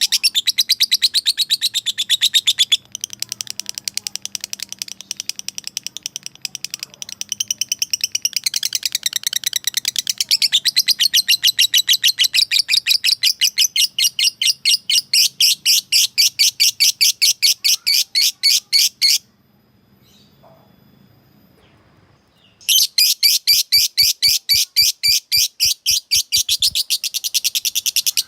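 Lovebird ngekek: a long, fast, even run of shrill chirps. It softens for a few seconds, stops for about three seconds past the middle, then starts again.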